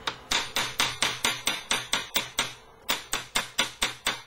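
Small steel hammer striking a strip of silver solder on the flat top of a steel bench vise, flattening its end thinner: a quick, even run of metal-on-metal strikes, about four a second, with a brief pause just past halfway.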